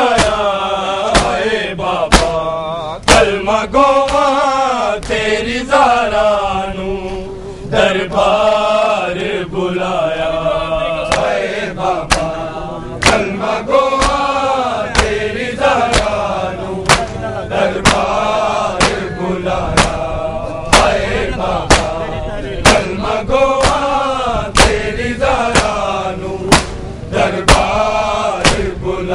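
A group of men chanting a noha, a Shia lament, in a slow wavering melody, with loud chest-beating slaps (matam) cutting through about once a second.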